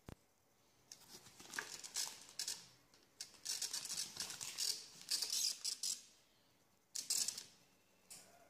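Plastic packaging crinkling and rustling as it is handled, in several bursts, the longest from about three to six seconds in, after a single click right at the start.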